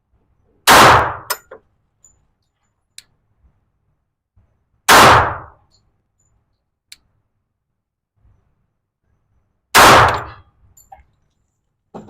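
Three slow, single pistol shots from a Glock 21SF .45 ACP handgun, about four to five seconds apart, each loud crack trailing off in a short echo.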